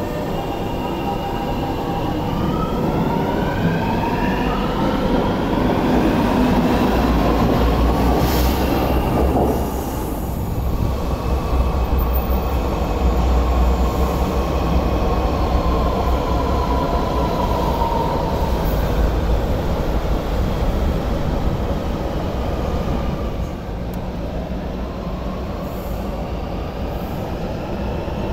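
MTR South Island Line metro train pulling away from the platform, its electric traction motors whining in a set of tones that climb in pitch as it accelerates. Then a train runs along elevated track with a steady low rumble.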